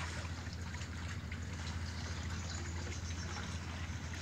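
River water lapping and trickling at the bank, with small irregular splashes over a steady low hum.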